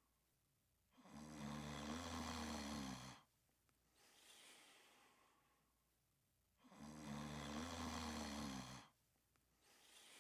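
Snoring: two loud, rattling snores about two seconds each, each followed by a softer breath out.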